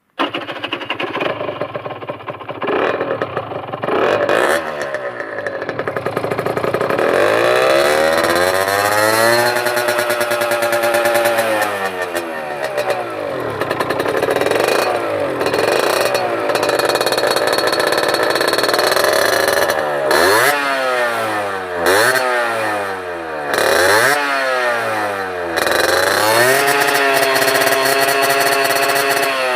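Peugeot XR7's 50 cc two-stroke engine through a LeoVince exhaust, revving hard. The pitch climbs and drops repeatedly, and in the second half comes a string of quick rises, each cut off sharply.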